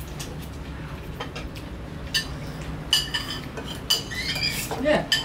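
Metal spoons clinking and scraping on ceramic plates and bowls as people eat, with a few sharp clinks about two, three and four seconds in.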